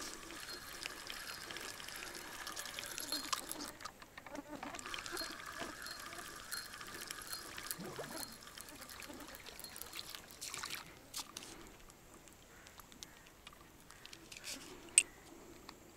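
River water trickling and lapping, faint and steady, easing off about eleven seconds in; a single sharp click near the end.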